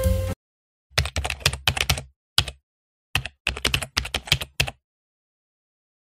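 Computer keyboard typing sound effect: quick, irregular key clicks in two runs with a short pause between, starting about a second in.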